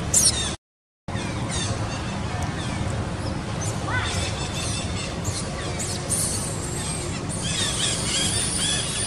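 Outdoor background noise, broken by a brief dropout to silence about half a second in, then a run of high-pitched squeals near the end from a young macaque.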